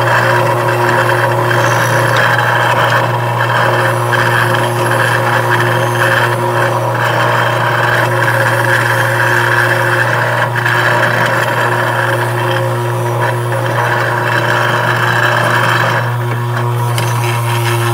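Bench grinder's wire wheel spinning with a steady motor hum while a steel axe head is pressed against it, the wire bristles scratching at thick black paint. About two seconds before the end the head is lifted off and the scratching drops away while the motor keeps running.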